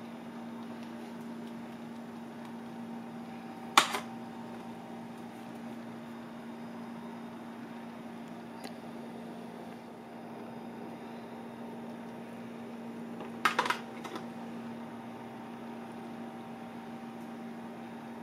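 Steady mechanical hum of kitchen equipment, broken by a sharp knock about four seconds in and a quick double knock about ten seconds later as crab shell pieces are handled against the steel tray and flour box.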